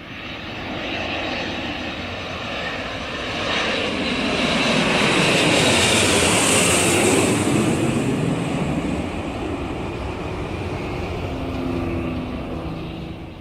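An aeroplane flying past: its engine noise swells out of silence, is loudest about six seconds in, then fades away.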